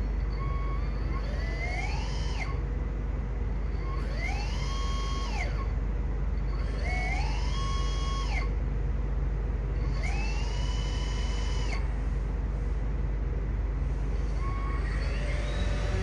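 Small brushless underwater thruster motors running out of the water, whining up in pitch, holding, then winding down again as the remote's joystick is pushed and released: four such runs about every three seconds, with a fifth starting near the end. A steady low hum sits underneath.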